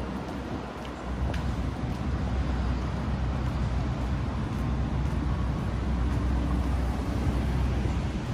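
City street traffic: a steady low rumble of motor vehicles on the road, with a faint engine hum rising about midway through.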